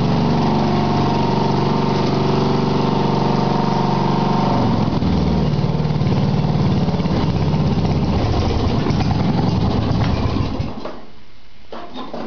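A 12.5 hp Briggs & Stratton engine on a lawn tractor runs at a steady speed. About four and a half seconds in it drops to a lower, rougher running, and it shuts off about ten and a half seconds in, leaving a few light clicks.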